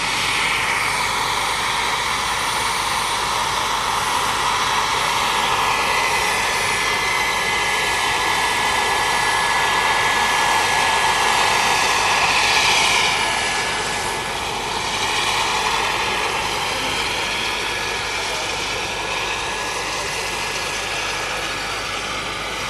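Turbine-powered radio-controlled scale model Bell 412 helicopter in flight: a steady high turbine whine over the rush of the rotor. It swells about twelve seconds in as the helicopter passes, then eases as it flies away.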